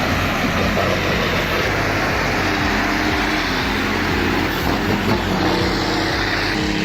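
A heavy vehicle's engine running loud and steady.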